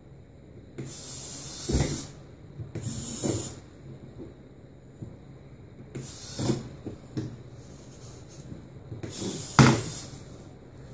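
Dynamixel servos of a five-axis robot arm whirring in four short bursts as the arm moves. There is a sharp clack about two seconds in and a louder one near the end.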